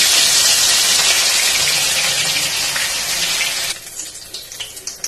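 A piece of turmeric-coated rohu fish sizzling loudly in hot mustard oil in a kadhai, a test piece whose sizzle shows the oil is hot enough for frying. The hiss is dense and steady, then drops to a quieter crackle with scattered pops a little under four seconds in.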